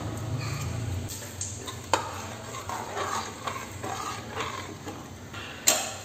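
Steel ladle stirring a boiling tomato-rice mixture in an aluminium pressure cooker, scraping and clinking against the pot. There is a sharp clink about two seconds in and a louder one near the end.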